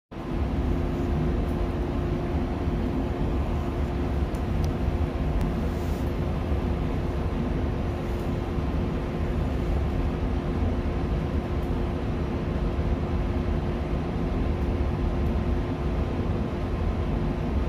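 Shinano Railway 115-series electric train standing at a platform, its onboard equipment humming steadily: a low rumble with a constant mid-pitched tone. A few faint ticks come around the middle.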